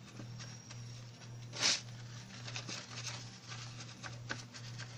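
Paper towel patting and rubbing a raw whole chicken dry: soft rustles and dabs, with one louder rustle of the paper a little under two seconds in. A steady low hum runs underneath.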